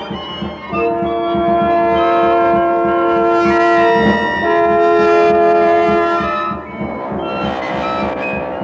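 Contemporary chamber-ensemble music: long held chords in the brass and winds, two in a row, the first giving way to the second about four seconds in. Near the end they drop back to a quieter, busier passage.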